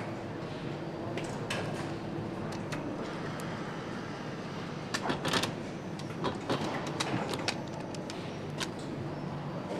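Engine assembly-line noise: a steady machinery hum with scattered metallic clicks and knocks, and a quick run of louder knocks about five seconds in.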